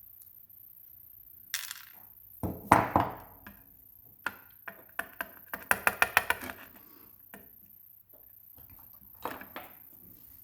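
Small metal clicks and clatters from handling an Evva 3KS lock and metal tools on a hard surface. The loudest clatter comes about two and a half seconds in, a quick run of about eight light ticks around the middle, and a couple more clicks near the end.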